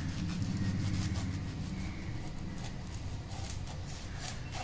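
Knife cutting through a crisp toasted sandwich on a plate, with faint crunching and then a few light clicks in the second half. A steady low hum runs underneath.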